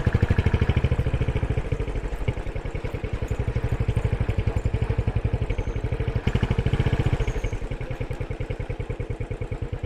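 Motorcycle engine running at low revs while ridden slowly, a steady rapid pulsing that swells a little twice.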